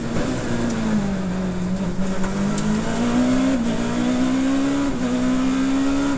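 Rally car engine heard from inside the cockpit: the revs fall in the first second as the car slows in third gear, then climb steadily under acceleration, with an upshift to fourth about five seconds in.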